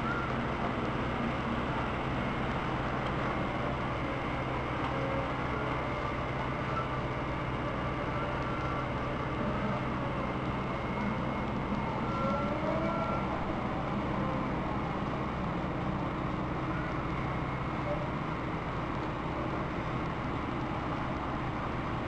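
Steady background rumble of a busy railway station and construction site, with a low, even machine hum underneath. A few faint short high tones come through about halfway.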